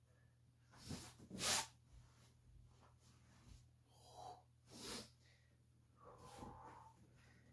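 A man breathing forcefully through his nose as he moves through yoga poses: short, sharp exhales, two close together about a second in (the second the loudest), then more, softer breaths through the middle and near the end. A low, steady hum sits underneath.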